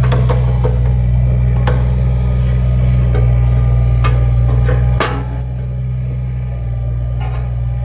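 Volvo EC20E mini excavator's diesel engine running steadily, with several sharp knocks from the machine. About five seconds in comes the loudest knock, and the engine note drops a little after it.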